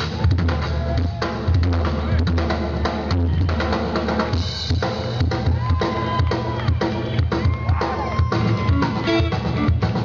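Live soul band playing with the drum kit to the fore: a steady beat of bass drum, snare and cymbals, with other instruments holding a few long notes over it.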